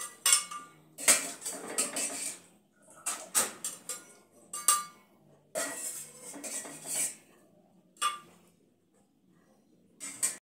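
Metal ladle clinking and scraping against a stainless steel pot and a blender jar, in repeated irregular strokes, as boiled chiles are scooped out for blending.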